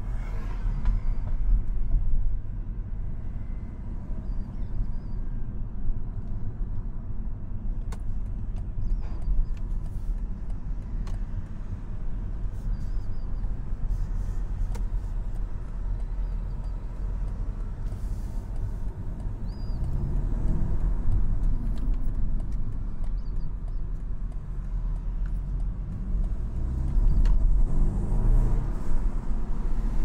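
BMW 220i's B48 2.0-litre turbocharged four-cylinder engine and road rumble, heard from inside the cabin while driving at low town speed: a steady low drone. It grows louder twice for a few seconds in the second half as the car pulls away.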